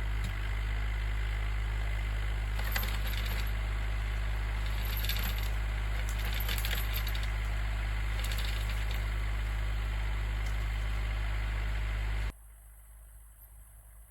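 Tractor engine running steadily as a low drone, with scattered metallic clinks and rattles over it. The drone cuts off abruptly about twelve seconds in.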